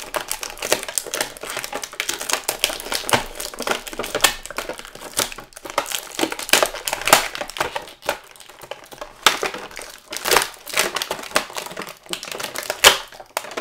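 Clear plastic toy packaging crinkling and crackling in a quick, uneven run as an action figure is worked out of its tray.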